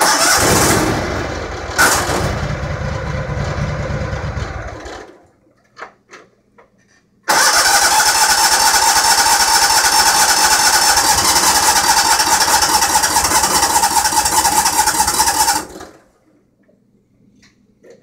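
Engine being cranked by its electric starter with the choke on, twice: about five seconds of cranking, a short pause, then about eight more seconds with a steady whir, and it never catches. The owner suspects it is not getting fuel.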